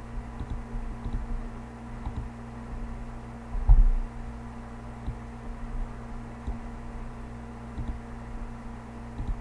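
Steady low electrical hum and room noise from the recording, broken by a few soft low thumps, the loudest about four seconds in, and a few faint ticks.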